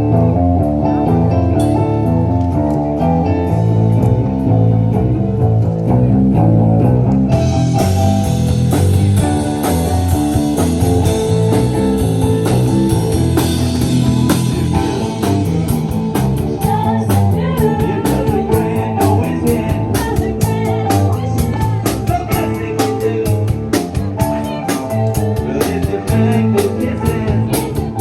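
Rock band playing live, with electric guitar and bass; drums with cymbals come in hard about seven seconds in.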